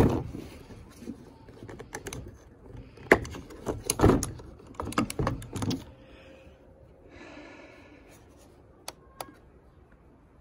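A Bushnell trail camera's plastic case being handled and opened: a run of clicks, knocks and rattles, loudest in the first six seconds, then two short clicks about nine seconds in.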